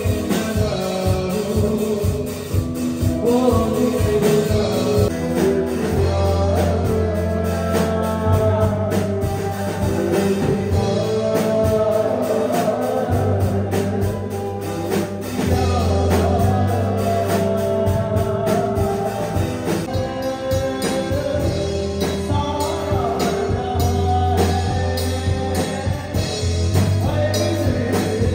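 Live band playing a song: a man singing into a microphone over electric guitar, keyboard and drums, with a steady beat.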